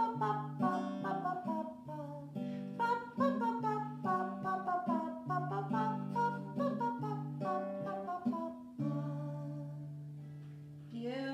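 Acoustic guitar strummed in a steady rhythm, closing on a final chord about nine seconds in that rings out and slowly fades.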